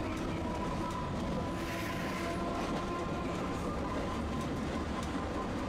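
Tosaden streetcar running along street track, heard from inside at the front: a steady rumble of wheels and running gear with a thin steady tone, and a brief rise in hiss about two seconds in.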